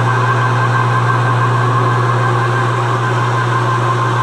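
Metal lathe running at steady speed with a steady low hum, spinning an off-centre Triumph Tiger Cub cylinder head with a counterweight fitted. This is a test run to check how well the work is balanced.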